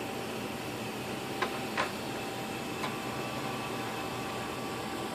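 A few light clicks, three in the first three seconds, from handling and feeding paper into the autoclave's small built-in thermal printer, over a steady machine hum.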